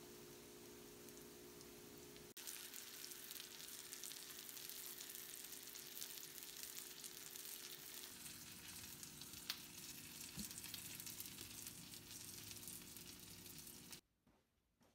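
Breaded pork cutlets shallow-frying in oil in a pan, a steady sizzle. It grows louder about two seconds in and cuts off suddenly near the end.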